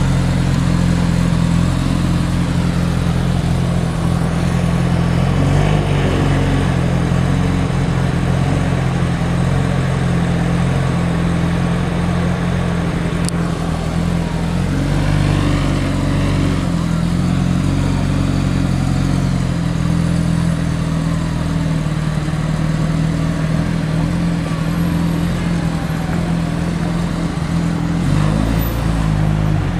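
BAC Mono's 2.5-litre four-cylinder engine idling steadily, with a low, even note, amid city traffic noise.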